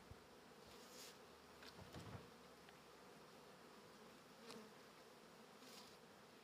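Honey bees buzzing faintly at the hive, a steady low hum, with a few soft rustles.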